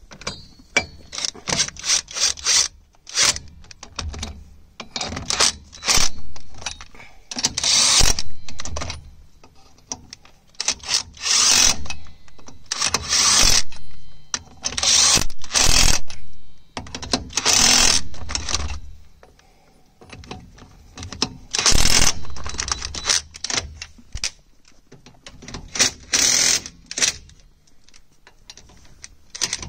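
Impact wrench hammering in repeated short bursts of a second or less, running nuts down onto a wheel spacer's studs on a 1996 Daihatsu Feroza hub.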